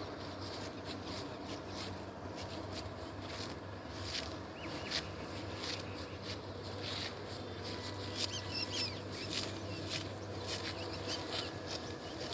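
Rice stalks being cut and handled by hand in a paddy: a run of short, crisp cutting and rustling clicks, with a bird chirping about eight seconds in.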